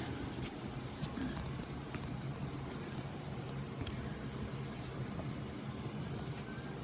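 Kitchen background: a steady low hum with scattered faint clicks and crackles.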